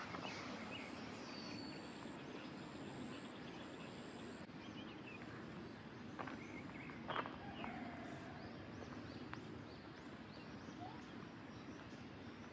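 Quiet rural ambience: a steady low background hum with scattered short bird chirps, and a couple of faint knocks about six and seven seconds in.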